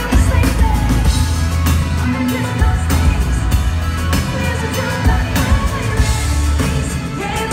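Pop-rock band playing live, heard from the audience: a female lead singer over drums, bass and electric guitar, with steady drum hits driving the beat.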